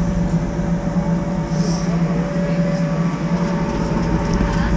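Steady low mechanical drone with a thin constant tone above it, running evenly throughout.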